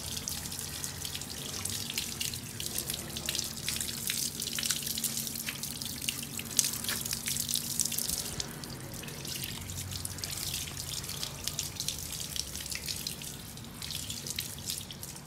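Water from a garden hose spraying onto a motorcycle drive chain and rear sprocket, splashing and dripping off onto the ground as the cleaning mix is rinsed away.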